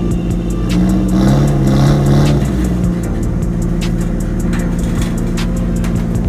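Nissan S14 Silvia engine revving up about a second in and easing off again as the car drives up loading ramps onto a trailer, over background music with a steady beat.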